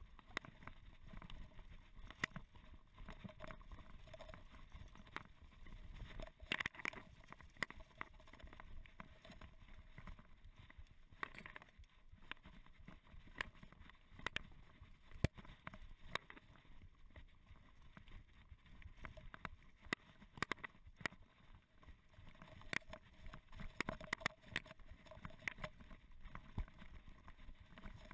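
Mountain bike rolling down a rough grass and dirt trail: tyre and low rumble over the ground, with the chain and frame rattling in frequent irregular clicks and knocks over bumps.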